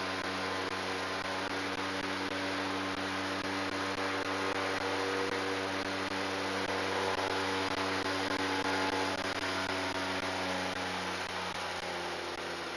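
ICON A5's Rotax 912 four-cylinder engine running at high power for a step taxi on the water, about 4,000 RPM, as a steady drone. It eases off slightly near the end.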